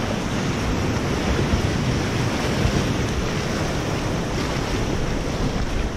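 Whitewater river rapids rushing, with water splashing right around the kayak: a steady, unbroken wash of noise.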